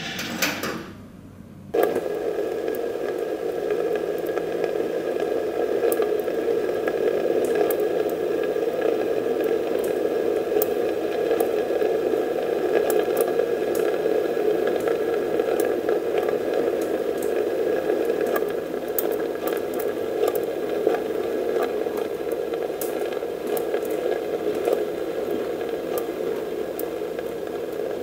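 Steady rushing noise in a flammability test chamber while a polyester fleece sample burns, with scattered small crackles; it starts abruptly about two seconds in after a brief quieter moment.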